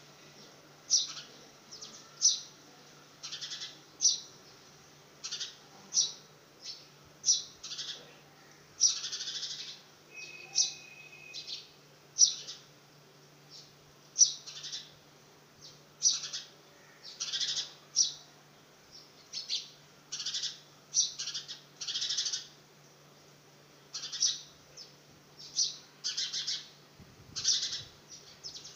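House sparrow chirping over and over: short, sharp, high chirps about once a second, some in quick pairs.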